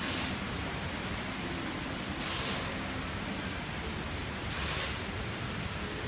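Graphic water curtain display: a steady hiss of falling water, with a brief splashing rush three times, about every two and a quarter seconds, as each released pattern of water lands in the basin.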